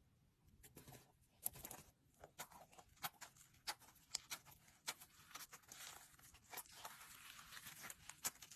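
Faint, irregular sharp clicks and crackles, one or two a second with small clusters between, like something small being handled, crinkled or torn.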